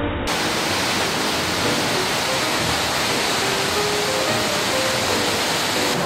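Steady roar of Sol Duc Falls, whitewater pouring over rocks, cutting in just after the start. Faint guitar music plays underneath.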